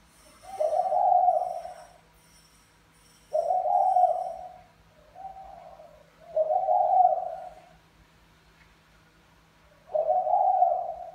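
Spotted dove cooing: deep, repeated coos coming roughly every three seconds, with a shorter, softer note in the middle. Faint high chirps sound in the background during the first few seconds.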